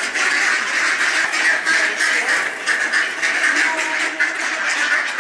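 A large flock of mallards quacking all at once in a steady, overlapping chatter as they crowd around to be fed.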